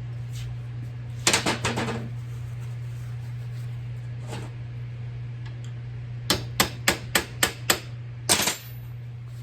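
Metal hand tools clattering as they are tossed down on a workbench: a burst of clanks about a second in, a single knock midway, then a quick run of sharp clanks near the end, the last and loudest one ringing briefly. A steady low hum runs underneath.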